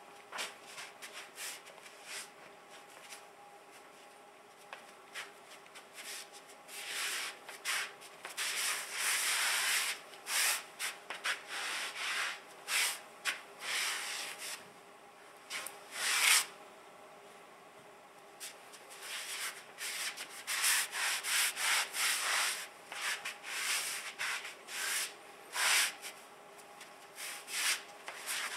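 Socked feet scuffing and scraping across a gritty, sandy concrete floor in irregular strokes. The scuffs are sparse for the first few seconds, then come thick and fast.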